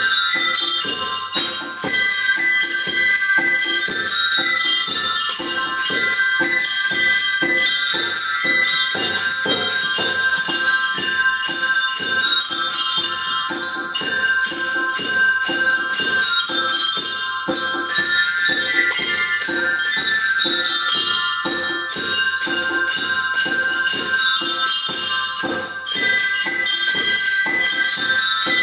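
Several glockenspiels played together, a steady run of struck metal-bar notes ringing over one another.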